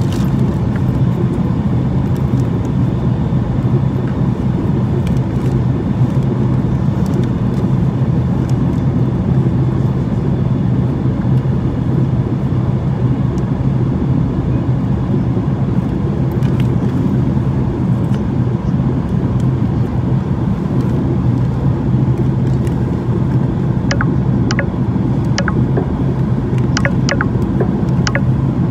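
Steady cabin roar of a Boeing 737-800 in flight on descent: engine and airflow noise heard inside the cabin, with a strong low hum. A few light clicks near the end.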